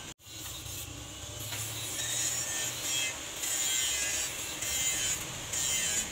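Charcoal forge fire burning hard, a rushing hiss with crackle and a low hum underneath, the flames fanned by forced air while leaf spring steel heats in the coals.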